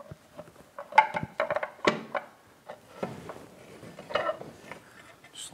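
Outboard lower unit knocking and clicking against the midsection as it is pushed up into place and its drive shaft fed into the housing: a series of irregular knocks and light clicks, a few with a brief ring.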